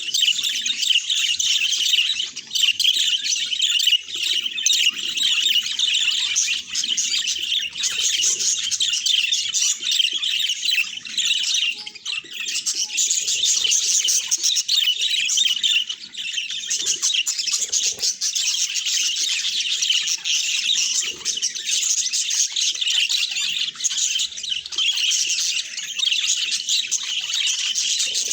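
Budgerigars chattering: a dense, unbroken stream of rapid high chirps and squawks.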